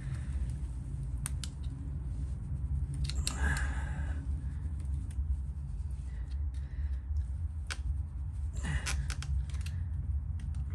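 Small plastic clicks and scrapes as the injector return-line connectors on a DV6 1.6 HDi diesel are prised off the injectors by hand and with a small screwdriver, with two brief rustling scrapes about three and a half and nine seconds in. A steady low hum runs underneath.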